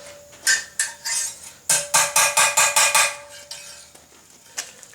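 Hand hammer striking hot steel bar on an anvil, with a bright metallic ring after each blow: two single blows, then a quick run of about seven blows at roughly five a second, and a lighter tap near the end.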